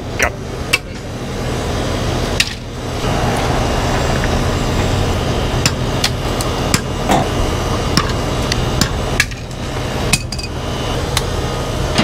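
Sharp, irregular metallic clicks and taps of hand tools working in a sheet-metal electrical disconnect box, over a steady background hum.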